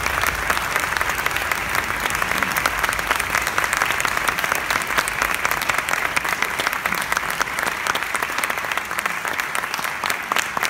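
An audience applauding, many hands clapping together in a dense, steady patter.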